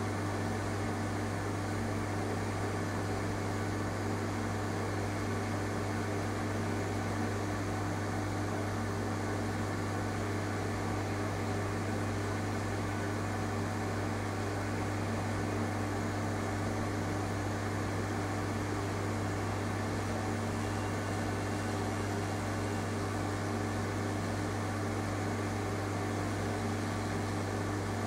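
Steady low electrical hum with a faint fan-like hiss, unchanging, with no distinct knocks or clicks.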